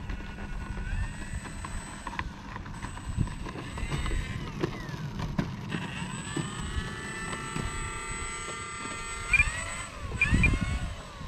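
Electric brushless motor and propeller of an FMS Ranger 1.8m RC plane whining at low taxi throttle, its pitch rising and falling with the throttle, with a short burst of throttle near the end. A low rumble sits underneath.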